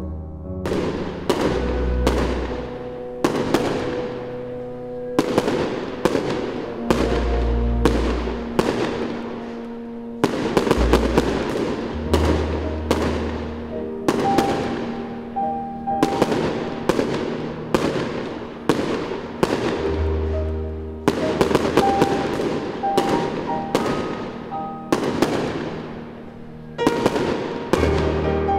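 Aerial fireworks shells bursting in a rapid, irregular series of sharp bangs, each trailing off in a fading echo, over background piano music.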